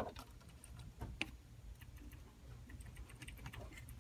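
Faint, scattered clicks and taps of a screwdriver and small screws against the plastic bottom cover of a Dell E7450 laptop as the cover screws are put back in. The clearest click comes about a second in.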